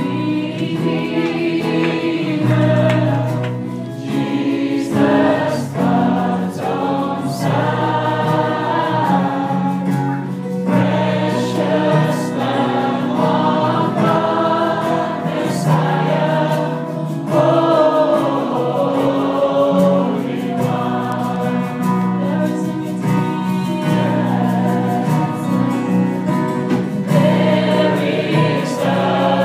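Gospel music: a choir singing over instrumental accompaniment with a steady bass line.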